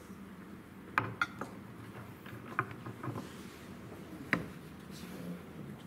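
A handful of sharp, light clicks and taps of small hard objects: a quick cluster about a second in, a few more around three seconds, and a single louder click a little after four seconds.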